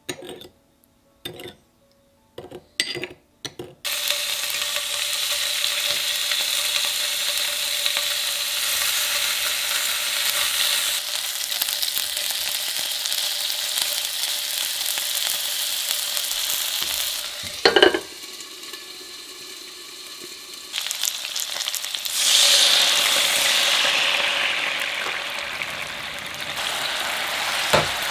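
A metal spoon clinks a few times against a small glass bowl while stirring a soy-sauce seasoning. Then pork belly rolls sizzle steadily in a frying pan. Near the middle there is a sharp knock and the sizzle drops for a few seconds, then it swells loud again and eases off as the sauce bubbles and reduces around the skewers.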